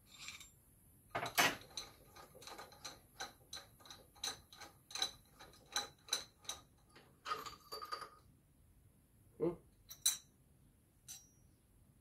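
A quick, fairly regular run of light metallic clicks, about three a second, as the motorcycle fork's metal parts and the disassembly tool are worked apart by hand. It is followed by a few scattered clinks and one duller knock near the end.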